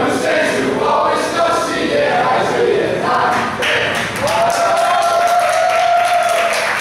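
A group of party guests singing together, ending on one long held note, with hand clapping joining in about halfway through.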